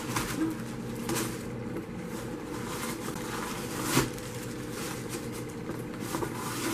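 Packing paper rustling and crinkling as it is pulled out of a new handbag and crumpled, in a few short bursts, the sharpest crinkle about four seconds in.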